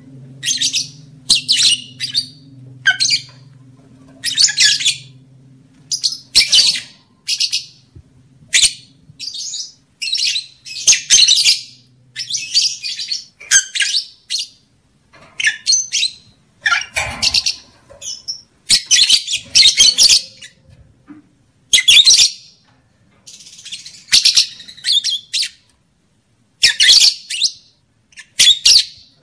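Lovebirds calling in short, shrill, screechy chirps that come in bursts about once a second, with a few longer runs of chatter. A faint low hum sits underneath for about the first twelve seconds.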